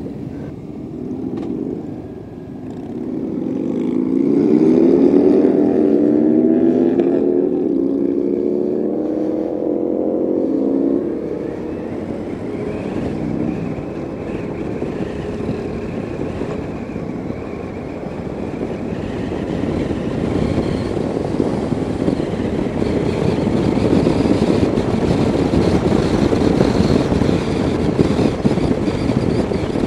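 Motorcycle engine accelerating away from a stop, its pitch rising through the gears over the first ten seconds or so. It then settles into steady engine and wind rush at cruising speed.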